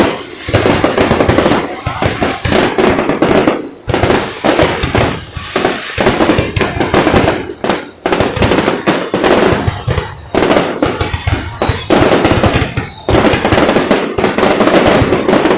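Fireworks display: a dense, nonstop barrage of bangs and crackling, with a faint whistle about twelve seconds in.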